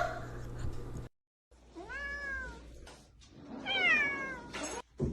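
Domestic cat meowing twice, each meow rising and then falling in pitch, the second a little louder.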